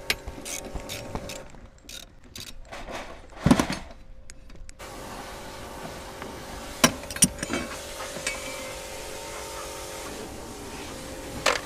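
Scattered clicks, knocks and rubbing from hand tools and seat fittings as the rear-seat bolts and trim are worked loose inside a car cabin. A heavier thump comes about three and a half seconds in, over a steady hum.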